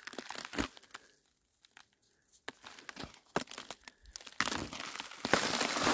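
Footsteps crunching through wet, crusted spring snow: scattered steps at first, then steady, louder crunching from about four and a half seconds in.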